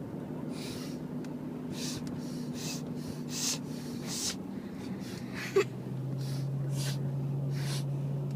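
Repeated short sniffs through a nose, roughly one or two a second, over a steady low hum that shifts in pitch about four and five seconds in. A single sharp click a little past halfway is the loudest sound.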